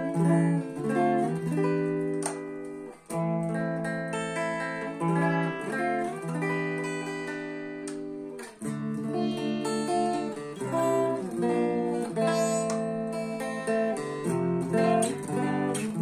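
Cort X1 electric guitar played through a Behringer GRX212 amplifier: picked notes and chords ringing out in turn, with brief gaps about 3 and 8.5 seconds in.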